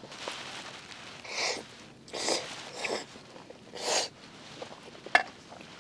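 A person breathing while eating: four short breathy sounds about a second apart, then a small click near the end.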